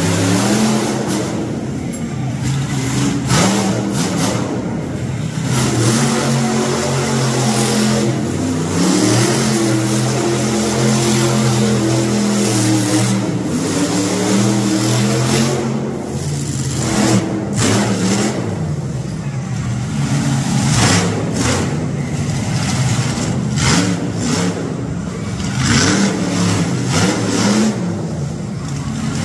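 Monster truck engine revving hard at full throttle, its pitch climbing and dropping again and again as the throttle is worked.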